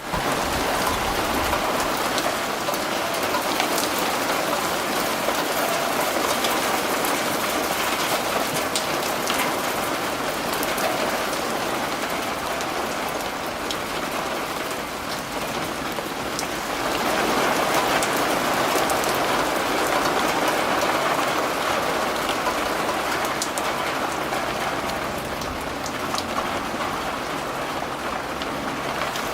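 Heavy rain with hail, a dense steady downpour peppered with sharp ticks of stones striking a hard surface. It eases slightly around the middle, then picks up again.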